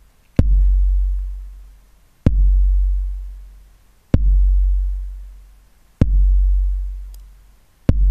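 Looped electronic kick drum, five hits about two seconds apart, each a sharp click with a long, deep booming tail that fades out. It plays through a bus compressor whose threshold is being turned down, so the compressor starts to act and turn the kick down.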